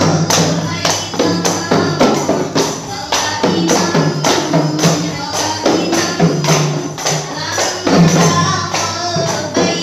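Several rebana frame drums struck by hand in a steady, even rhythm, with women's voices singing a qasidah over them.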